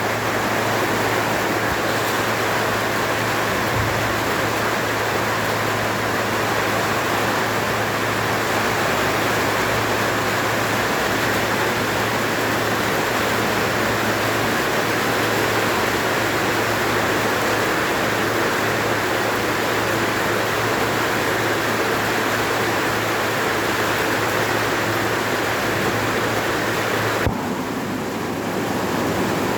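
Steady, even rain noise with a low hum beneath it. A brief click sounds near the end, and the hiss turns slightly duller just after it.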